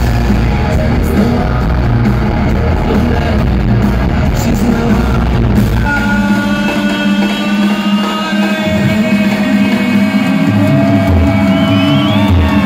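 Live rock band with distorted electric guitars and drums, recorded from the crowd in an arena. About six seconds in, the drums and bass drop away, leaving held, wavering guitar tones.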